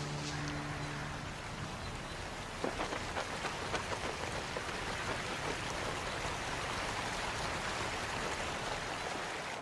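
Steady hiss of running, splashing water with a rain-like patter and a few light ticks about three seconds in. A held music chord fades out at the start.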